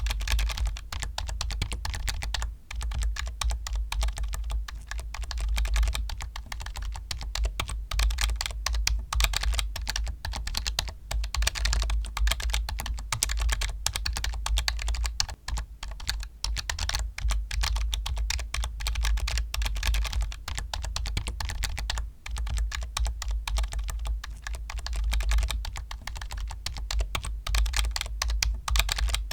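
Computer keyboard being typed on quickly and without let-up, a dense stream of key clicks and key strikes with only brief pauses.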